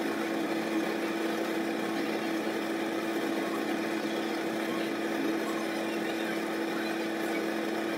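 Kitchen fan motor running with a steady hum and airy whoosh, unchanging throughout.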